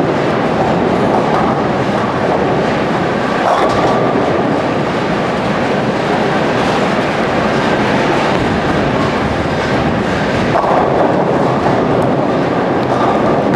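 Bowling alley din: balls rolling on the lanes and pins being knocked down, a steady rumble with louder clatters about three and a half seconds in and again near the end.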